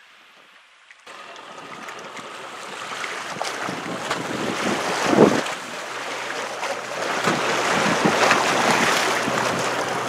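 Waves washing and splashing against shoreline rocks, starting about a second in and building, with a heavy splash about halfway through.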